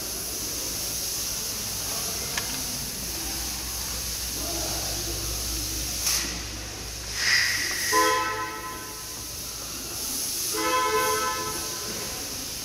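A vehicle horn honks twice, about a second each, a little over eight seconds in and again near the end, over a steady hiss.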